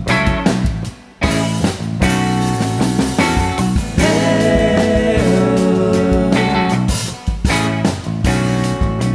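Rock band playing live: an instrumental passage of guitars over bass and drums, with a brief drop in level about a second in.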